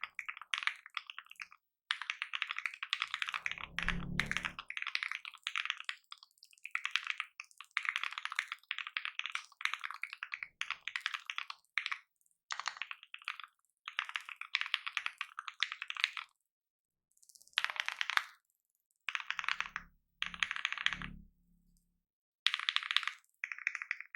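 Fast typing on a custom mechanical keyboard with lubed Gateron Ink linear switches on a polycarbonate plate, a dense clacky stream of keystrokes with brief pauses. Deeper thuds come about four seconds in and again near the two-thirds mark.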